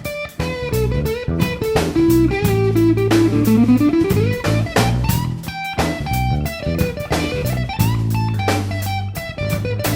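Background music: a band with electric guitar, bass and drum kit playing a blues-rock track, with a guitar line that slides down and back up in pitch.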